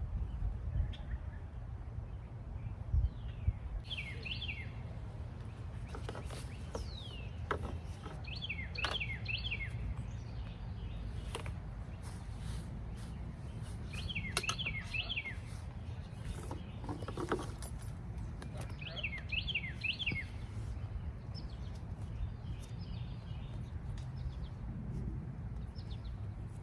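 A songbird singing a short phrase of quick downward-sliding chirps four times, about every five seconds, over a steady low rumble.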